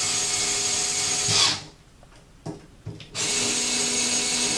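Small cordless electric screwdriver driving Phillips screws, running twice for about two seconds each with a short pause between. Each run holds a steady motor whine, then gets louder with its pitch dipping just before it stops as the screw seats.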